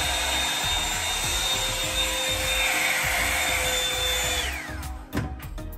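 Hot Tools One Step blowout volumizer (hot-air brush dryer) running with a steady whine, then switched off about four and a half seconds in, its motor falling in pitch as it winds down. Background music with a beat is heard once it stops.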